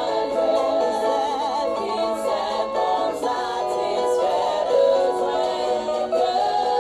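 Background music: a choir singing a sacred, gospel-style piece, several voices holding long notes together.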